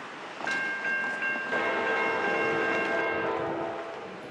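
Diesel freight locomotive air horn blowing: a high multi-note chord sounds from about half a second in with a short break, a lower chord joins about a second later, and the horn stops shortly before the end.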